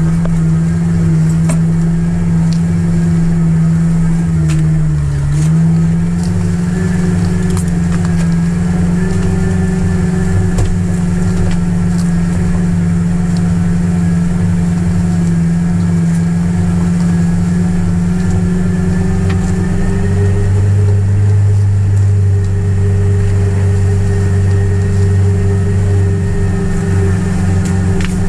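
1997 Jeep TJ engine pulling steadily in first gear, low range, crawling up a steep rutted trail, heard from inside the cab. The engine's pitch dips briefly about five seconds in and its low drone gets stronger about two-thirds of the way through, with a few light knocks scattered over it.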